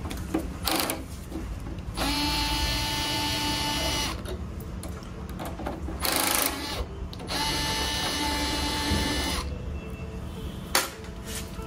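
Cordless electric screwdriver running in two spells of about two seconds each, backing out the screws that hold an ASIC miner's hashboard brackets. A brief louder burst comes between them, and a few short clicks from handling the screws and metal casing.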